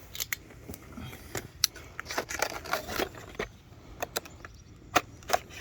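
A trailer coupler lock's retail packaging being opened by hand: irregular sharp clicks, crinkles and light clinks.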